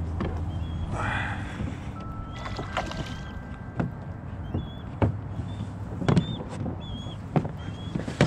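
Water splashing and slapping with irregular sharp knocks against a small boat's hull while a hooked redfish is fought, with a noisy splash about a second in. Short high chirps repeat about once a second.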